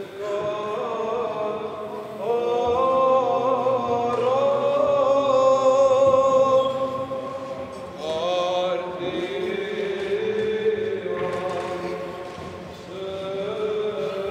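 Male Orthodox clergy chanting a liturgical hymn together, in long held notes with new phrases starting every few seconds.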